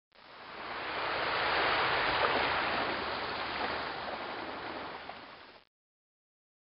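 Rushing water noise, swelling up over the first second or so, then easing off and cutting out near the end.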